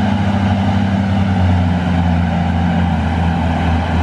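Heavy diesel engines of the Mack log truck and the bulldozer pushing it, running steadily under load with a low drone that drops slightly in pitch about a second and a half in, as the truck pulls out of a slick spot.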